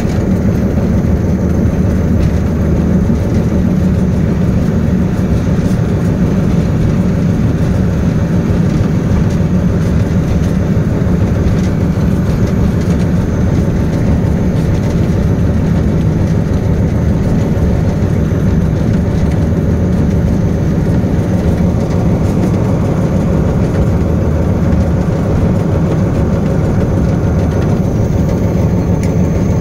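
Diesel locomotive engine running steadily: a loud, even drone with a strong low hum that does not change in pitch or level.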